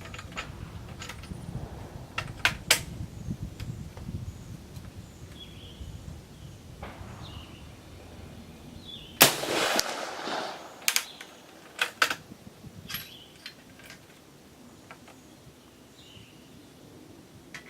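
A single shot from a Springfield Model 1866 Second Allin trapdoor rifle firing a .50-70 smokeless load, about nine seconds in, with a short echo after it. Sharp metallic clicks come a few seconds before the shot and a couple of seconds after it.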